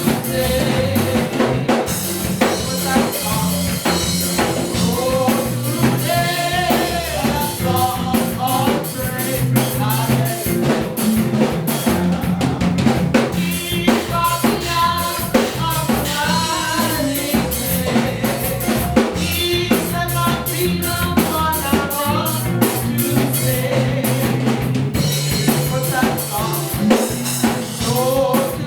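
Live gospel worship band music, with a drum kit (snare and bass drum) keeping a steady beat under a bass line and a moving melodic line.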